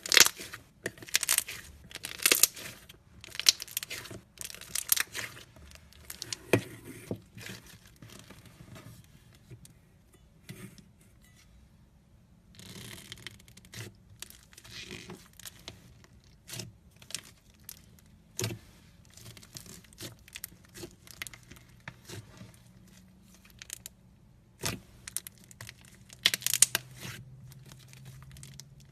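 Crunchy slime being squeezed and pressed by hand close to the microphone, giving bursts of sharp crackling and popping, with quieter spells between the squeezes.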